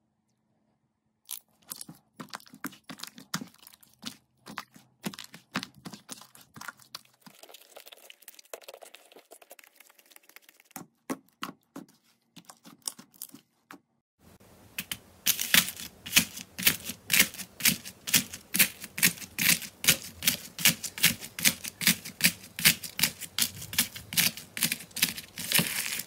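Slime being pressed and poked, giving scattered crackles and clicky pops. About halfway in it turns into a steady run of crisp pops, about three or four a second, louder than before.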